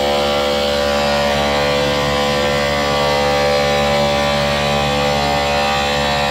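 DJ truck's stacked loudspeakers and horn tweeters blaring a loud, harsh buzzing drone that holds the same pitches without a break.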